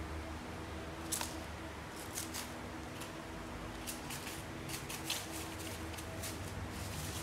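Clear plastic sheeting and plastic strapping crinkling and rustling in short, irregular crackles as a kitten paws and pounces on them, over a steady low hum.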